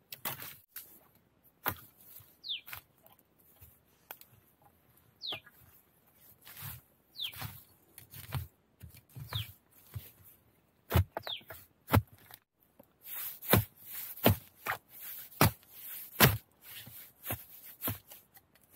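A long knife chopping at a young bamboo shoot among dry bamboo leaves: a string of sharp chops, heaviest and closest together in the second half, with rustling leaf litter. A bird repeats a short falling whistle about every two seconds during the first two-thirds.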